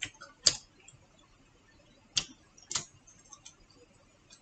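Chopsticks clicking against a small glass dish: four sharp taps, two about half a second apart near the start and two more a bit over two seconds in.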